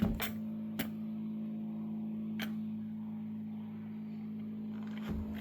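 A few light clicks as the generator's fuel cap is twisted off, over a steady low hum.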